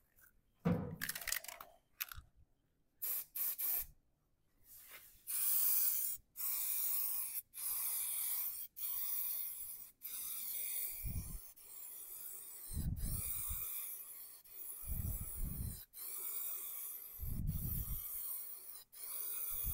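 Raptor bed liner aerosol spray can hissing in long passes, starting about five seconds in and broken by short pauses, with a few short low rumbles in between.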